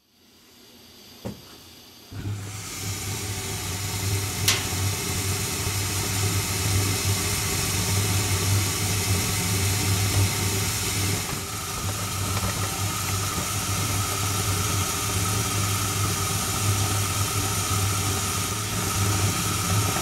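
Gas furnace ribbon burners lighting off: a click, then about two seconds in the burners catch and settle into a steady rush of flame with a low hum and a single sharp tick a couple of seconds later. The burners are burning with yellow-tipped flames, short of primary air.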